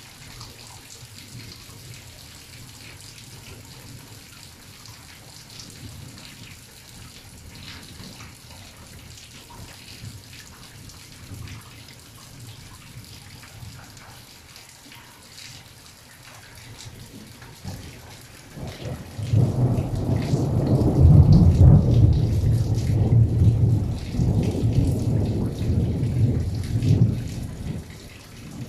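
Steady rain pattering, then about eighteen seconds in a long, deep rumble of thunder rolls in, peaks a few seconds later and dies away near the end.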